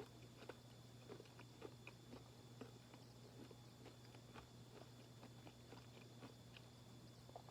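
Faint chewing of a chewy peanut granola bar: soft, irregular mouth clicks about once or twice a second, over a steady low electrical hum.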